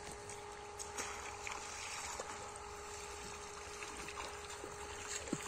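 Bare feet wading through shallow muddy pond water, with small splashes and trickling water, the sharpest splashes about a second in and near the end. A steady faint hum runs underneath.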